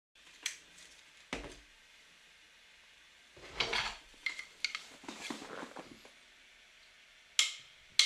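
Scattered light clicks and knocks with two short spells of rustling and silence between them; the sharpest knock comes near the end.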